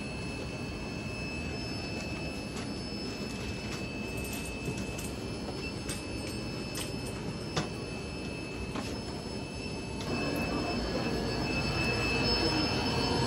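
Steady hum and hiss of aquarium pumps and filters with a thin high whine over it, and a few light clicks in the middle. About ten seconds in, the water noise grows louder as the bubbling tank filters come near.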